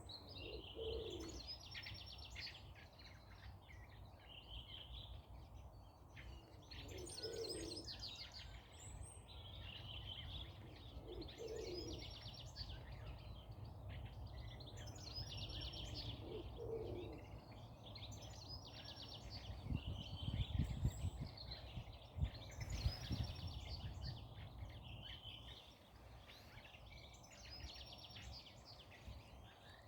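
Forest birds chirping and trilling, with a lower call repeating every four to five seconds. About two-thirds of the way through comes a low rumble with a few thumps, the loudest sound in the stretch.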